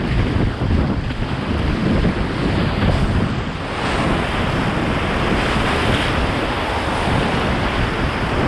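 Whitewater rapids rushing and splashing around a kayak's bow as it runs through the waves, with wind buffeting the microphone.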